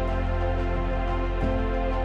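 Soft background music: sustained pad-like chords over a deep steady bass, the chord shifting about one and a half seconds in.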